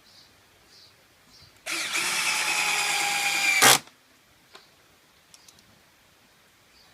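Black+Decker 20V MAX cordless drill driving a drywall screw into wood in one run of about two seconds, its motor pitch easing down slightly under load and ending with a sharp knock. Faint handling clicks before and after.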